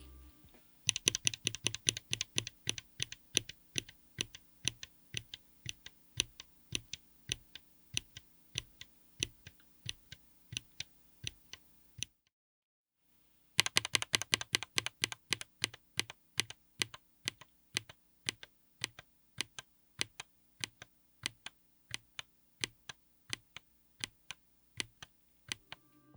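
Keystrokes on a keyboard fitted with TTC Elf King HE linear magnetic switches in an aluminium case with an FR4 plate: sharp clacks that start as a quick run and slow to about two presses a second, stop for about a second and a half near the middle, then the same run repeats.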